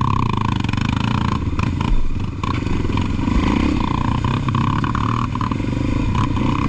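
Trail motorcycle engine running steadily, with a few short knocks and clatter in between.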